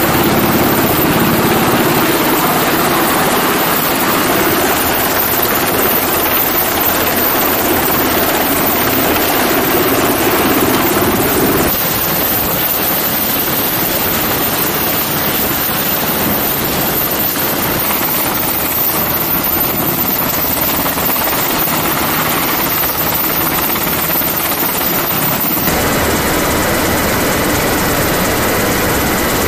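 MH-60S Seahawk helicopter hovering close by, a loud steady noise of main rotor and twin turboshaft engines. The sound changes abruptly about 12 s in. Near the end it is heard from inside the cockpit, where steady high whining tones come through.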